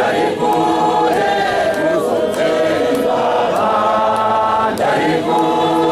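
Choir of women singing a Shona church chorus, unaccompanied, in long held notes with short breaks between phrases.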